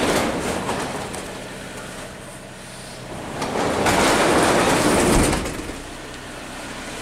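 Subaru Legacy's exhaust at idle, a steady low hum, with a loud rushing noise from exhaust gas blowing over the microphone in two swells: one at the start and a longer, louder one from about three and a half to five and a half seconds in.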